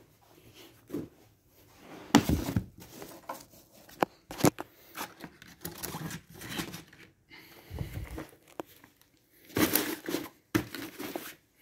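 Hands packing books and a padded accessory pouch into a fabric-lined laptop trolley: rustling, scuffing and soft bumps in irregular bursts, the loudest about two seconds in and again near the end.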